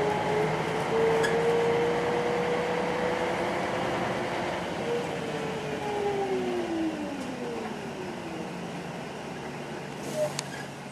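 Volvo B10M bus heard from inside the saloon, its underfloor six-cylinder diesel and drivetrain running with a whine that rises gently and then falls away as the bus slows into a stand. The overall noise eases off towards the end, and there is a faint click near the end.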